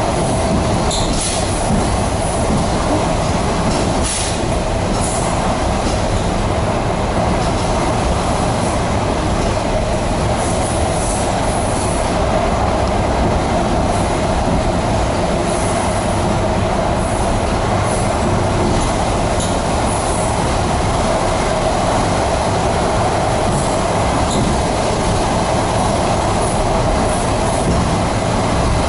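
ED4MK electric multiple unit running along the line: a steady rumble of wheels on rail, with brief high-pitched noises from the running gear now and then.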